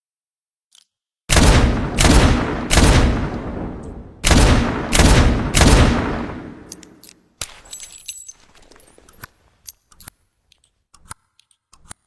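Revolver sound effect: six shots in two groups of three, each shot ringing out, then a series of small metallic clicks from the gun's mechanism.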